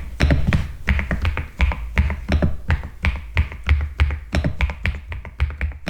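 Typing on an Epomaker TH99 mechanical keyboard: a fast, irregular run of keystrokes, each a sharp click with a low thud as the key bottoms out.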